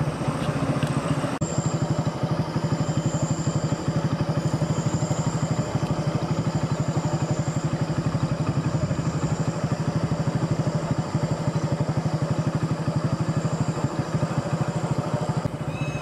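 Motorcycle engine running steadily at cruising speed, heard from on the bike, with a thin, steady high tone above it.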